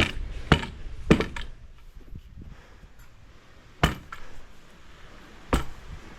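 Stamping mats being tamped down into fresh concrete: sharp thuds, three about half a second apart at the start, then two more single thuds spaced out later.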